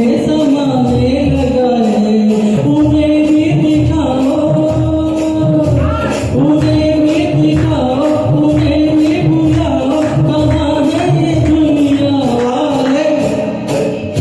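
A Hindi film song sung over a backing track, with held sung notes above a steady, regular percussion beat.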